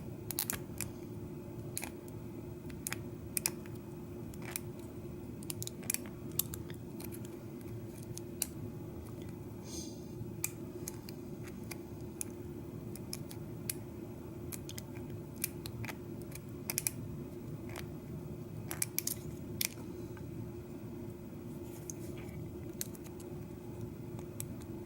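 Small, irregular metallic clicks and ticks of a pick and pry bar working the pins inside a Schlage mortise lock cylinder during picking. A steady low hum runs underneath.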